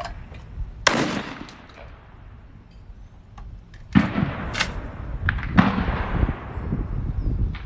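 A shotgun shot at a thrown clay target about a second in, with a trailing echo. Further sharp clacks follow over rustling noise in the second half.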